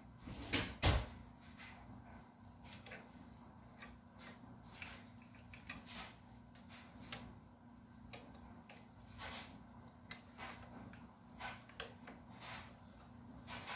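Scattered light clicks and taps of hands handling the Hover-1 Buggy's frame bars and small screw hardware, with a couple of louder knocks about a second in.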